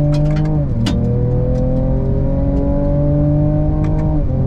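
Ford Ranger Raptor's twin-turbo V6 pulling hard under full acceleration, heard from inside the cabin, its pitch climbing steadily through each gear and dropping sharply at upshifts about a second in and near the end. A few sharp knocks come through over the engine.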